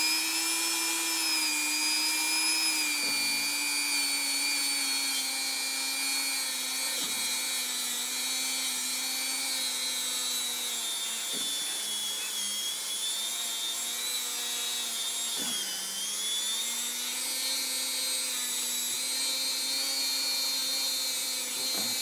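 Dremel rotary tool with a buffing brush running steadily, scrubbing old liquid gasket off a motorcycle engine case. It makes a high, steady whine whose pitch sags a few times as the brush bears down on the metal, most clearly about 12 and 16 seconds in.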